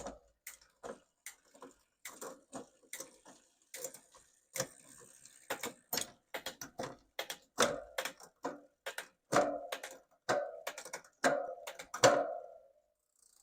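Bicycle chain and nine-speed rear derailleur clicking irregularly as the cranks are turned and the bike is shifted up and down through the gears, checking the shifting after the cable tension was reduced at the barrel adjuster. From about eight seconds in come several louder clacks with a short ring.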